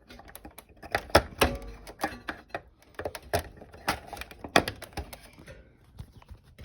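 Irregular sharp clicks and knocks of a three-wire connector being lined up and pushed onto a coil-top electric stove's burner heat switch, plastic and metal terminals clicking as they are handled.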